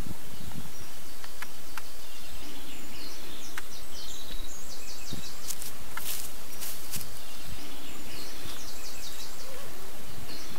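Woodland ambience: a steady background hiss with a small songbird singing a short high trill that recurs three times, and a few faint clicks.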